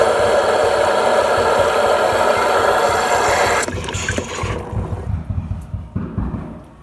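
A loud, steady rush of running water that cuts off abruptly about three and a half seconds in, followed by quieter sounds that fade away.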